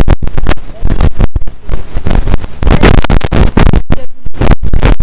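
Breaded chicken pieces deep-frying in hot oil in an aluminium pot: a loud, harsh, crackling sizzle.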